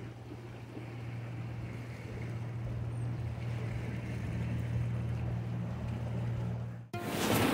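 A steady, low engine hum held at one pitch, with some wind noise over it. It cuts off abruptly near the end, where a louder, busier sound begins.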